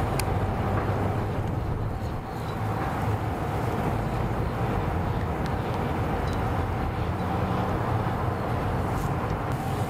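Boat motor idling steadily: an even low hum with a faint steady whine above it.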